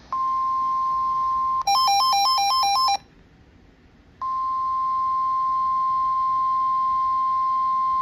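NOAA Weather Radio 1050 Hz warning alarm tone, a loud steady single-pitch tone that signals an incoming warning. It is cut after about a second and a half by a harsher electronic beep warbling quickly between two pitches for just over a second, then a short gap, and the steady alarm tone resumes about four seconds in and holds.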